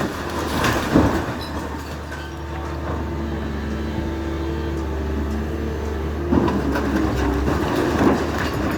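A heavy machine's engine running steadily, with knocks and clanks of demolition near the start and again in the last few seconds.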